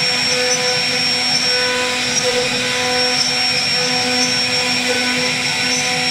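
CNC router spindle running at speed, its bit milling a carved relief into a wooden door panel: a steady high whine over a constant cutting hiss.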